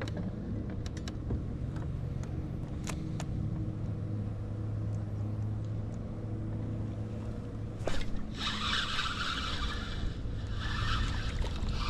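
Steady low hum of the boat's trolling motor, with a few sharp clicks in the first few seconds. About eight seconds in, several seconds of splashing as a hooked crappie thrashes at the surface.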